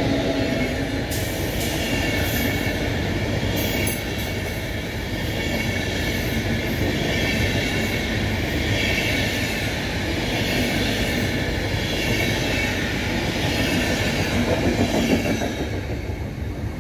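Passenger coaches of an Intercity train rolling past at speed: a steady rush of wheels on rail, fading near the end as the last coach goes by.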